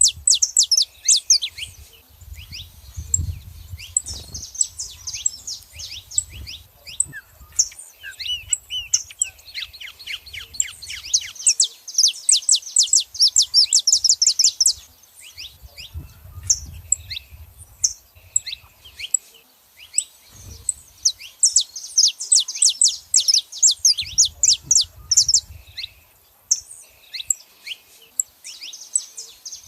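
Saffron finches, male and female, calling and singing in fast runs of high, sharp chirps and trills, broken by short pauses.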